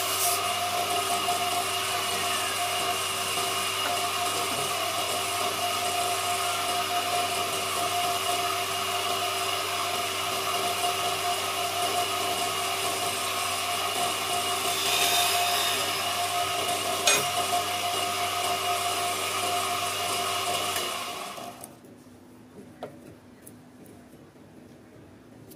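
Wood lathe motor running steadily with a whine and hum, while a pad rubs against the spinning wooden workpiece at the start. About 21 seconds in the motor is switched off and the sound dies away.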